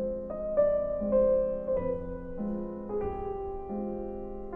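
Background keyboard music: a slow melody over held notes.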